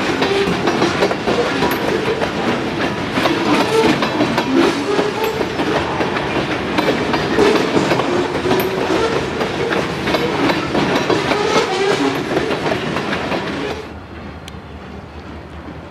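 Freight train rolling past at close range, its cars' wheels clattering over the rail joints. The noise stops abruptly about fourteen seconds in, leaving a much quieter background.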